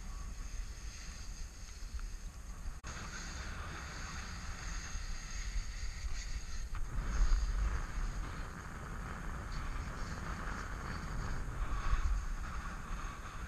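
Wind buffeting the microphone of a body-worn camera during a descent on snow, with the hiss of sliding over the snow. The hiss grows louder about seven seconds in.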